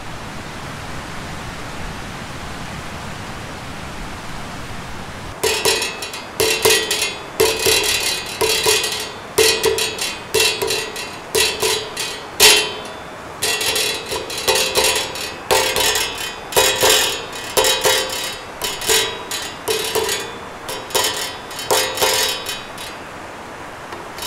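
Steady rush of water over a weir, then from about five seconds in a metal sign being struck with a stick, about two blows a second in a loose, drum-like rhythm, each blow giving a short ringing metallic tone.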